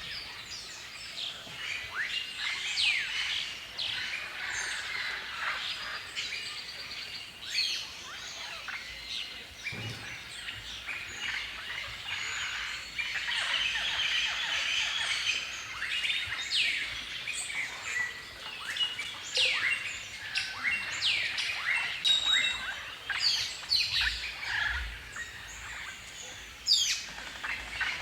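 Many birds chirping and calling at once: a dense chorus of short, sharp notes, many sliding down in pitch, overlapping without pause.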